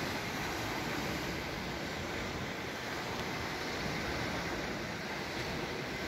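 Steady wash of sea surf mixed with wind.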